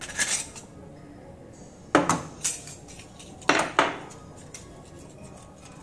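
Brass parts of a murukku press clinking as they are handled: sharp metal-on-metal clicks with a short ring. There is a small clink at the start, a cluster of clinks about two seconds in and another pair about three and a half seconds in, as the cylinder is set down and its brass die plates are taken out.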